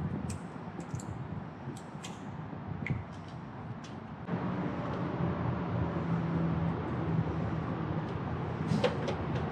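Short sharp clicks of plastic lug nut caps being pulled off a wheel with a cap removal tool. After about four seconds, a steady low hum, with a few clicks near the end from a plastic tool case being handled.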